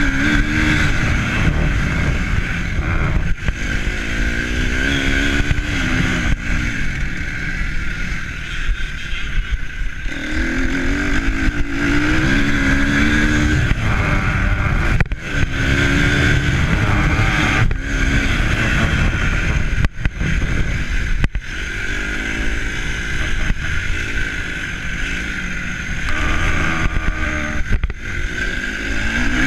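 A motor vehicle's engine running under heavy low wind rumble on the microphone, its pitch rising and falling repeatedly as it speeds up and eases off.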